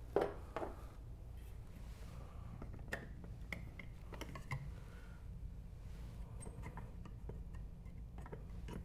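Scattered light clicks and taps as the cover of a Honeywell pneumatic wall thermostat is handled and fitted back onto it, over a faint steady low hum.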